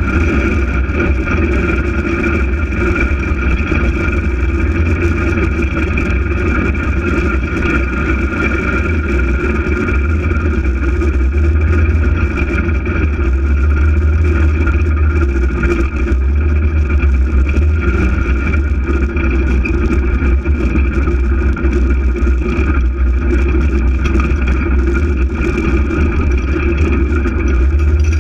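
Polaris RZR 800 side-by-side's twin-cylinder engine running steadily under way, a constant low drone with a steady high whine over it.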